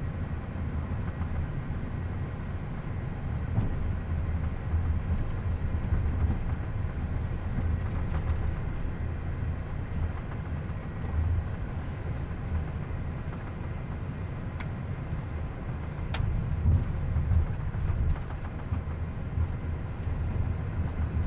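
Steady low rumble of a Gulfstream G550 on the ground, heard in the cockpit, with a single sharp click about 16 seconds in.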